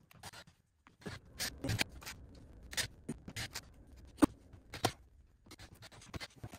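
Screws being driven through the gasket into a sheet-metal door back panel with a cordless drill-driver: short runs of the driver with scattered clicks and sharp taps of screws and tool against the metal, the loudest taps a little after four seconds in and near five seconds.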